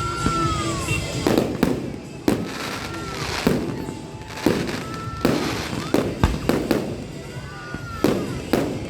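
Aerial fireworks bursting: about a dozen sharp bangs at irregular intervals, with crackle and rumble between them.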